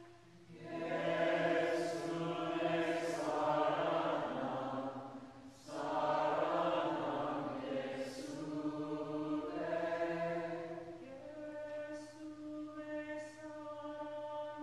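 A group of voices singing a Hindi hymn together in chant style over a harmonium holding steady sustained notes. The singing pauses briefly twice, and after about eleven seconds it thins out, leaving mainly the harmonium with a lighter vocal line.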